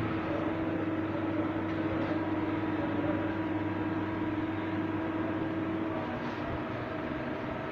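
Star RNC-16 CNC lathe running, a steady machine hum with a held tone that drops out about six seconds in.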